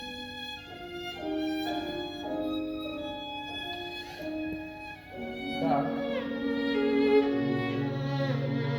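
Violin playing a slow melody of held notes, with lower notes from a second instrument coming in about halfway through.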